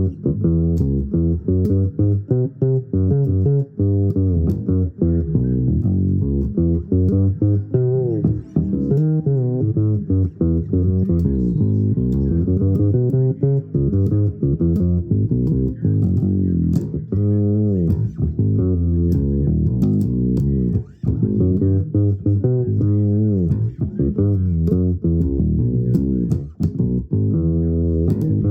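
Low-pitched plucked string instrument playing an improvised solo line, note after note with many sliding notes.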